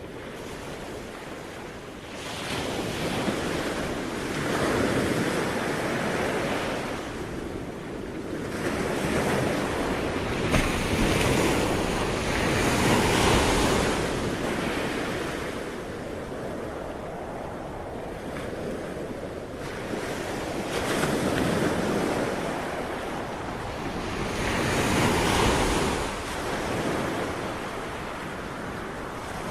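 Sea waves breaking and washing up the shore, a rushing noise that swells and falls back in slow surges several seconds apart.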